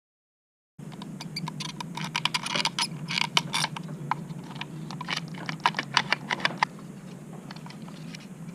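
A rapid, irregular run of light clicks and taps, thickest in the first few seconds after a short dead-silent gap, then thinning out, over a steady low hum.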